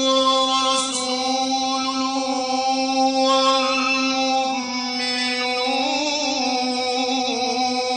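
Quran recitation in a slow, melodic style: one long drawn-out vocal note held on a single pitch, with a slight waver about three-quarters of the way through.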